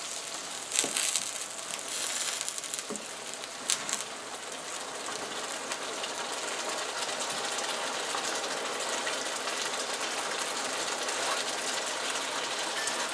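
Roux and chicken broth sizzling in a frying pan as the gravy cooks, a steady hiss, with a few clicks in the first four seconds.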